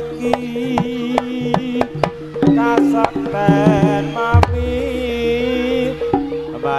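Live jaranan gamelan music: sharp kendang drum strokes over a steady held tone, with a wavering high melody line entering about three seconds in.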